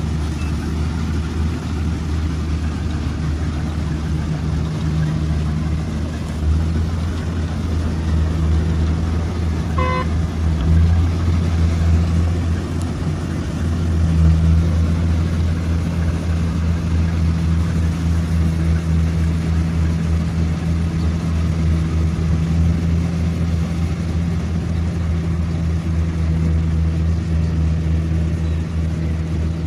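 Combine harvester's engine running steadily with a low hum, swelling a little around eleven and fourteen seconds. A short beep sounds once about ten seconds in.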